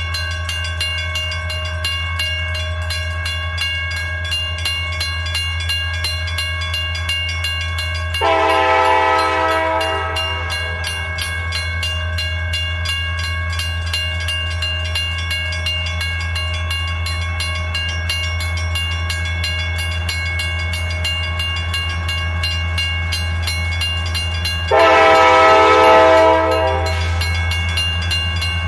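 Grade-crossing bell ringing in a rapid, even ding over a steady low rumble as the approaching Norfolk Southern SD70M locomotive sounds its horn twice for the crossing, two blasts of about two seconds each, the second louder and nearer.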